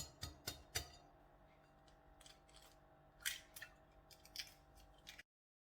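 Eggs being cracked: four sharp taps of shell against a bowl in the first second, then fainter scattered clicks of shell. The sound cuts off suddenly just after five seconds.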